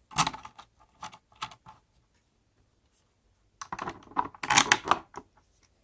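Light clicking and clattering of plastic battery-module holders and small metal busbars being handled and fitted onto terminal bolts: a few scattered clicks in the first second and a half, then a dense run of clicks from a little past halfway to near the end.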